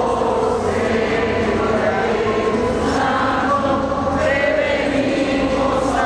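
A group of voices singing a hymn together, holding long notes that change pitch slowly.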